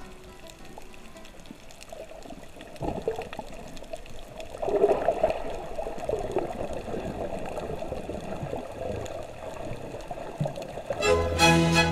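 Water noise picked up by a camera held underwater: uneven sloshing and bubbling, louder for a couple of seconds around the middle. Music with sustained pitched notes comes in near the end.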